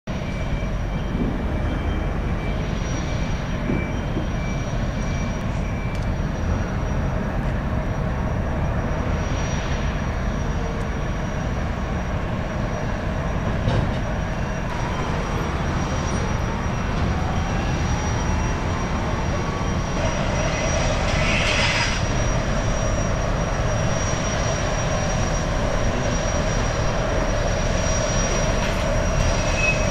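High-speed jetfoil running past at speed: a steady rumble from its gas turbines and water jets with a thin high whine, growing a little louder in the second half as it comes closer.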